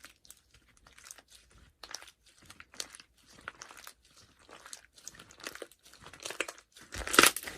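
Irregular crunching and crinkling crackles, like small objects being handled or squeezed, getting louder and busier near the end.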